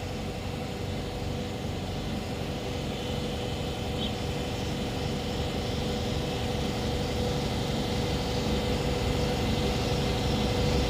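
A steady machine drone, like a motor running, with one constant tone in it, growing gradually louder.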